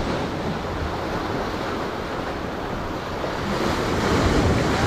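Sea waves washing against the rocks of a breakwater, a steady rush of surf that grows a little louder near the end, with wind buffeting the microphone.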